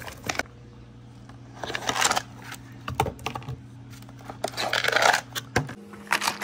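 Billiard balls clicking and rattling against each other in their cardboard tray as the trays are handled, in several short clusters of sharp clicks over a steady low hum.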